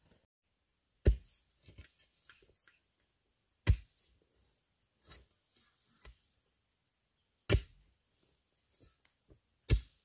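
A long iron digging bar driven into hard, dry clay soil: four heavy strikes a few seconds apart, with smaller knocks and crumbling soil between them.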